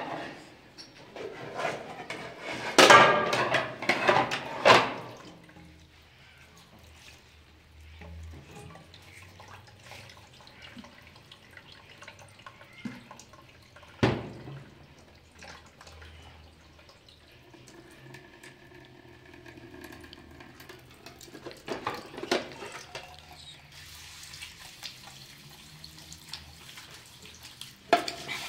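Dishes washed by hand in a stainless-steel sink: plates and pans clattering, loudest in the first few seconds, with a single knock about halfway and more clatter later. Tap water runs into the sink near the end.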